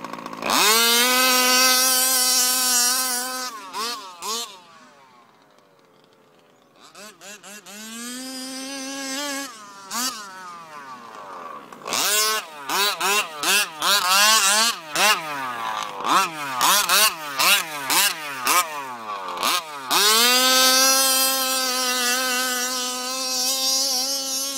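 A BZM micro 28.5cc two-stroke engine on a large-scale RC car, breathing through a BZM micro tuned exhaust pipe, revving hard. It holds long full-throttle runs at a high steady pitch at the start and end. In between it drops to a quiet idle and then makes a long string of quick throttle blips that rise and fall.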